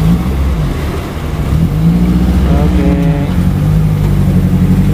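Off-road 4x4's engine running under load on a trail, getting louder about two seconds in as it is revved and holding there.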